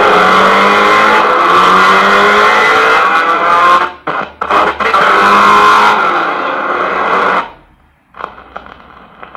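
Motorcycle engine sound effect played from a vinyl sound-effects record: the engine revs with its pitch gliding up and down, drops out briefly twice about four to five seconds in, then cuts off sharply about seven and a half seconds in, leaving only faint clicks.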